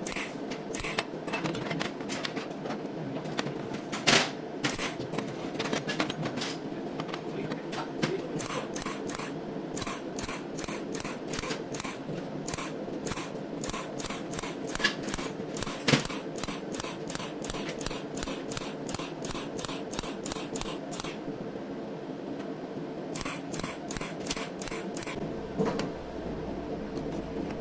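SZ-GCS16 cold welding machine laying down a weld: a rapid train of sharp electric clicks from the welding pulses, about two to three a second, over a steady hum. The clicks pause briefly about three quarters of the way through, then resume.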